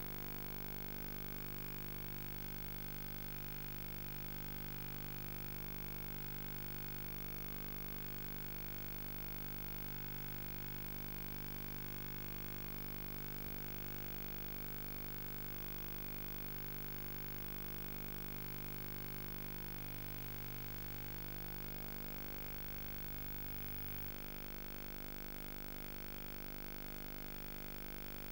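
Steady electrical hum and hiss with no programme sound: the soundless tape transfer's background noise. Its deepest part shifts a little about three-quarters of the way through.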